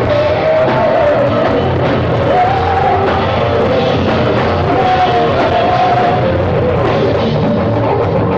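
Rock band playing, with a lead singer holding long, wavering sung notes over the band.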